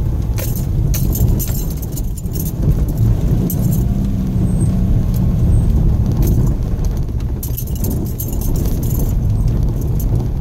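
Inside the cabin of a 2014 Subaru XV Crosstrek driving on a rough dirt road: a steady low rumble of engine and tyres, with frequent sharp rattles and clicks as the car jolts over the bumps.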